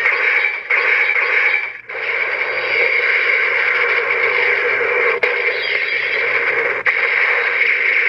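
The CSM Den-O toy transformation belt's built-in speaker playing one of its electronic sound clips. The playback is continuous and tinny, with a brief break about two seconds in and a couple of faint clicks later on.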